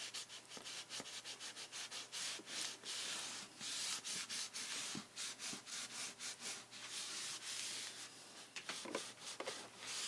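A soft cloth pad rubbed briskly over a freshly glued sheet of paper to press it down onto card: a quick run of short dry strokes, several a second, with a few longer sweeps.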